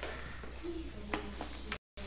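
Sheet of paper rustling faintly as a hand slides over it, pressing an origami fold flat, with a couple of light ticks, over a steady low electrical hum. The sound drops out briefly near the end.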